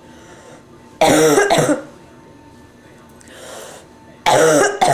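A person with bronchitis coughing hard in two bouts about three seconds apart, each a quick pair of coughs, with a breath drawn in between.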